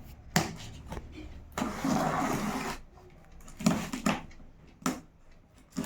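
Laptop box and packaging being handled and opened: a few sharp clicks and knocks, and a scraping rustle from about one and a half to three seconds in.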